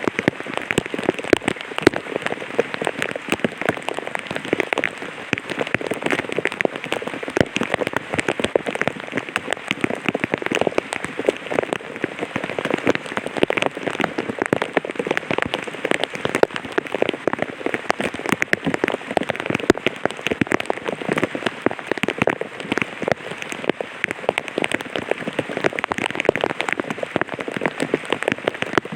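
Light rain falling on an umbrella: a steady, dense patter of many small drop strikes.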